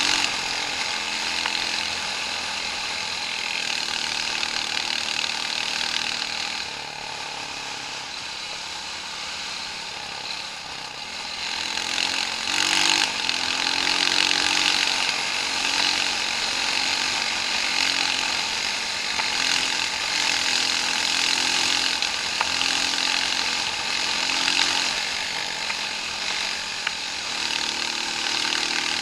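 Engine of an off-road vehicle running on a trail, its pitch rising and falling with the throttle over a loud hiss. It eases off about seven seconds in and picks up again about five seconds later.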